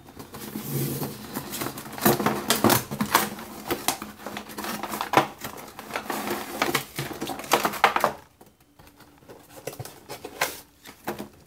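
A cardboard headset box being opened and unpacked by hand: rustling, scraping and many short knocks and clicks, dying down for a couple of seconds near the end before a few more clicks.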